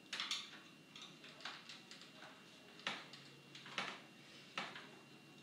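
Sparse, separate clicks and scrapes of a screwdriver and metal parts being handled, about six in all, as tight screws are worked out of a stereo receiver's chassis.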